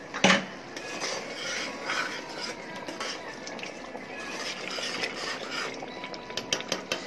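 Metal spoon stirring a liquid prawn curry in a cooking pot, scraping and clinking against the pot's sides. There is a sharp knock about a third of a second in and a run of quick clinks near the end.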